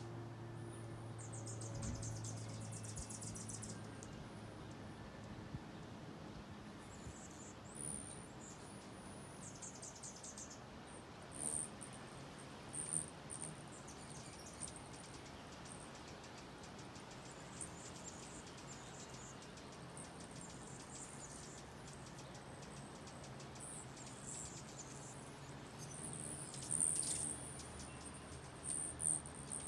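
Allen's and rufous hummingbirds giving repeated high chips and rapid, buzzy chattering around a feeder, loudest in short bursts midway and near the end, over a faint steady low hum.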